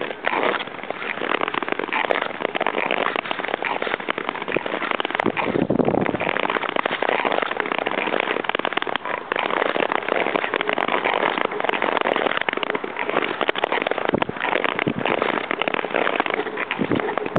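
Long-distance touring skate blades gliding and scraping over natural lake ice: a continuous crackling hiss.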